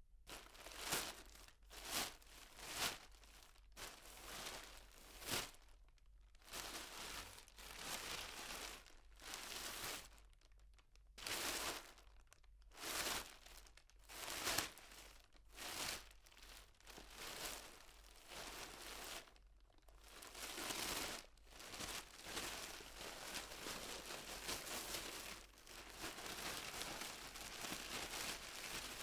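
Plastic bag being opened and handled, heard from a medium distance: a run of sharp crinkles and crackles, then denser, more continuous rustling of the plastic.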